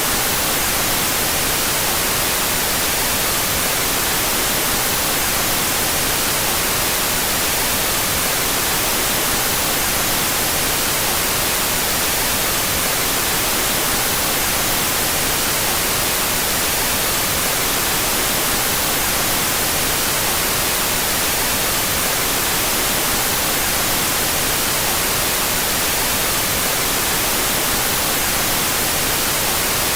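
Steady white noise, an even hiss brightest in the high end, unchanging throughout, with the stereo channels played out of phase.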